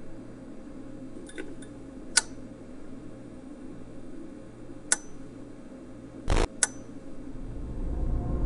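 Quiet indoor room tone with a steady low hum, broken by a few sharp clicks and one short, louder knock about six seconds in.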